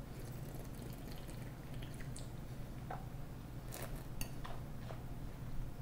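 A sip of red wine being worked around the mouth in tasting: faint wet slurps, smacks and small clicks of the lips and tongue, scattered through, over a steady low hum.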